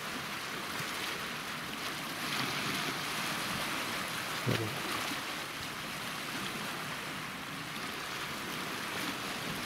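Small sea waves washing steadily over a rocky shore. A brief murmur of a voice comes about halfway through.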